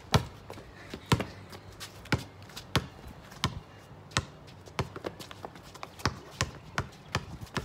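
Basketball being dribbled on concrete: a steady run of sharp bounces, a little under two a second.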